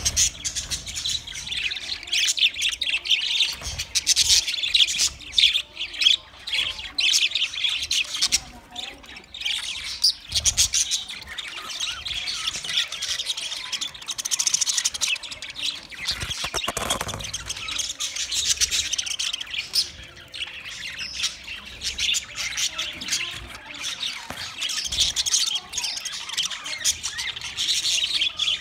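A flock of budgerigars chirping and chattering together, with many overlapping warbles and squawks running on without a break.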